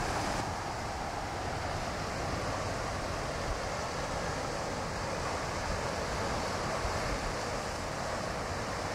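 Ocean surf washing against a rocky shore, a steady rushing wash with wind noise on the microphone.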